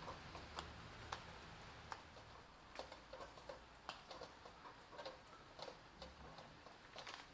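Faint, irregular ticks and taps of rain dripping during a monsoon downpour, over a soft hiss of rain.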